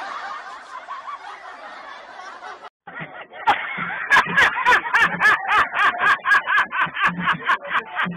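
A man laughing loudly in rapid, repeated bursts, starting about three seconds in after a fainter sound cuts off abruptly.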